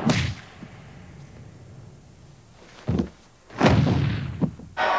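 A few heavy thumps or slams: one at the start, another about three seconds in, a louder one with a short tail just after, and a small one near the end, with a quiet stretch between the first and the rest.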